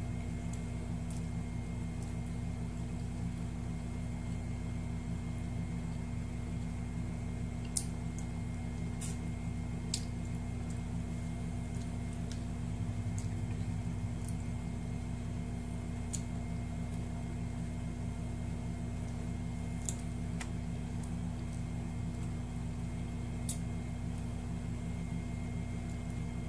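A steady low mechanical hum, with a few scattered short clicks and smacks of someone eating by hand.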